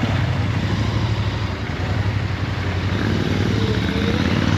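Royal Enfield Interceptor 650's parallel-twin engine running through its stock exhaust, a steady low exhaust note heard from the rider's seat, with road and wind hiss over it.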